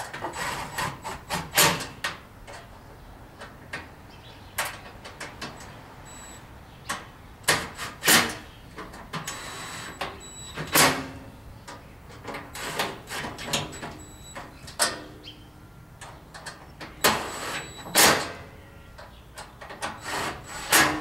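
Irregular knocks and clanks of the grill cart's metal side panels and frame being handled and fitted together, with several louder knocks scattered among lighter clicks.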